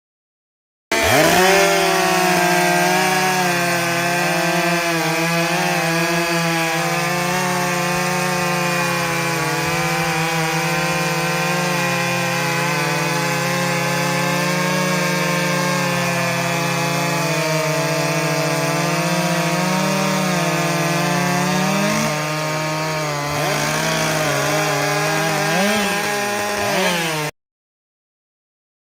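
Stihl 661 two-stroke chainsaw at full throttle, cutting through a large maple log, its engine note wavering as the chain loads in the wood. Near the end the revs climb as the saw frees from the cut, dip, and rise once more, then the sound cuts off suddenly.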